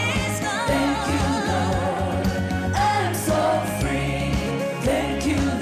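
Gospel song with a singing voice over a steady bass and drum backing.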